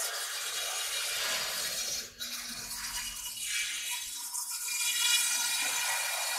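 Spindle of a five-axis CNC router running at high speed while its cutter mills a block of polystyrene foam: a steady high whine over a hissing cutting noise, dipping briefly about two seconds in.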